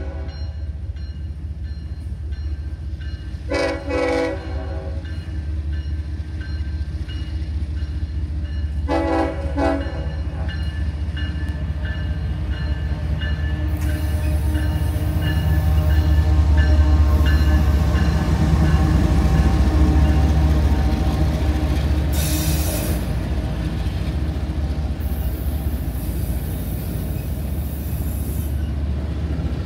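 CSX diesel freight locomotive sounding its horn in three short blasts over the first ten seconds, then its engine rumbling louder as it comes past. Autorack freight cars roll by after it, with bursts of high wheel noise near the end.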